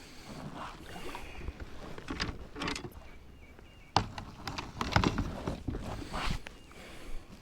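Water sloshing and knocking around a kayak on a river, irregular, with a sharp knock about four seconds in and more around five seconds.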